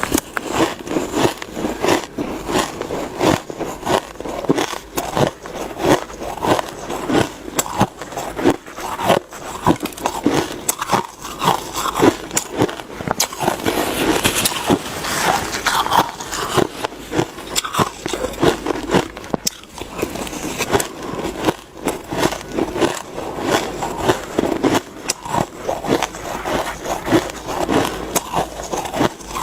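Shaved ice being bitten and chewed close up: a dense, uneven run of frosty crunches.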